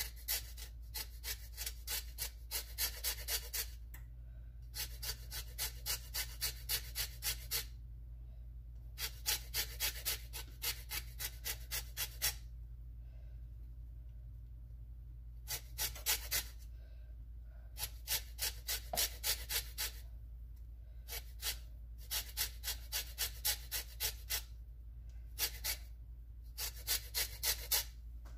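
Lemon peel being scraped on a handheld zester in quick repeated strokes, about three or four a second, in runs of a few seconds with short pauses between.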